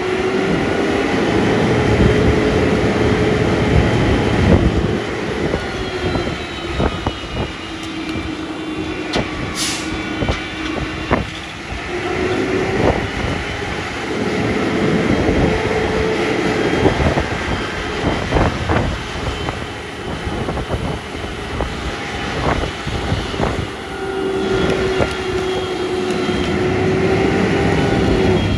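Automated side-loading garbage truck compacting a load of bottles and cardboard in its hopper. The engine revs and the hydraulic pump whines in three long cycles. Scattered clanks and knocks of the load run through it, with a sharp clank about ten seconds in.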